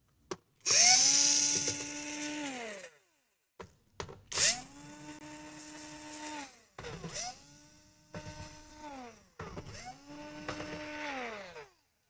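Cordless electric screwdriver spinning in about five short runs, each winding up in pitch, holding steady and winding down, as it drives screws out of a laptop's bottom case. The first run is the longest and loudest.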